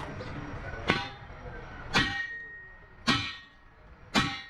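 Four sharp metallic strikes about a second apart, each leaving a ringing tone that dies away, like a hammer knocking a damaged car wheel rim back into shape.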